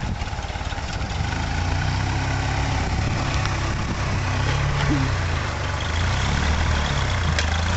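Rock crawler buggy's engine running at low revs as it crawls over boulders, its pitch rising and falling a little with the throttle.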